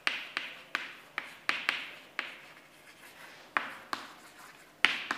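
Chalk writing on a chalkboard: a string of sharp chalk taps, each followed by a short scratchy stroke, with a pause of about a second midway.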